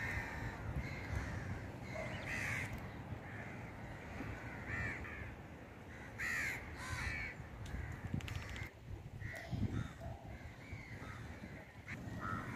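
Birds calling over and over, short calls every second or so, over a low steady rumble.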